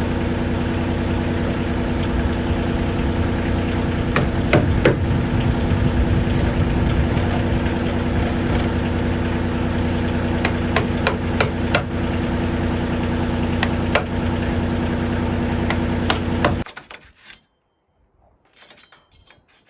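An engine running steadily, with sharp hammer blows knocking against the heavy timber at intervals. The engine stops suddenly near the end.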